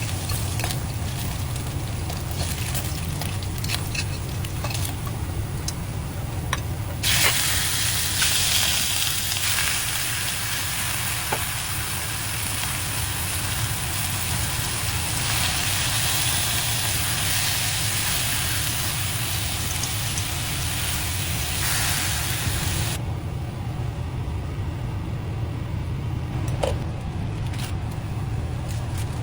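Food sizzling in a frying pan, a loud hiss that starts suddenly about seven seconds in and stops suddenly about two-thirds of the way through, over a steady low rumble.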